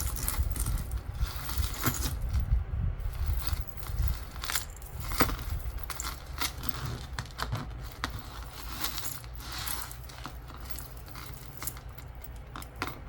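Costume jewelry clinking and rattling as pieces are handled and sorted, with irregular sharp clicks.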